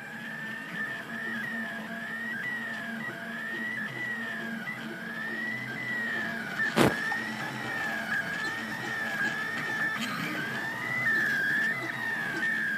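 Anycubic Kossel delta 3D printer printing: its stepper motors whine, the pitch rising and falling in short repeated arcs about twice a second as the print head moves, over a steady low hum. A single sharp click sounds about halfway through.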